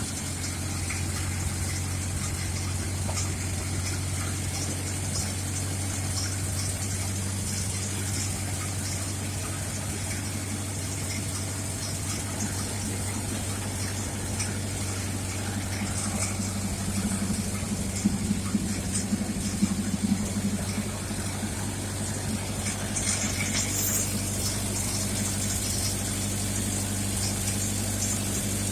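A car engine idling steadily, a little louder for a few seconds in the middle.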